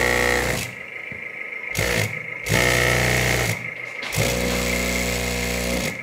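Vibration motor of a 1/14 LESU hydraulic RC road roller, shaking the steel drum through its eccentric shaking block, switched on and off in four bursts: a loud mechanical buzz, the longest bursts lasting about one to two seconds. A faint steady high whine runs underneath.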